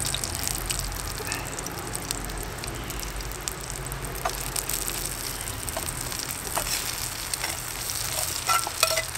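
Caramelised onions sizzling in an MSR frying pan over a Trangia alcohol stove that is running too hot, with a few clicks and scrapes of a utensil against the pan as the onions are scooped out.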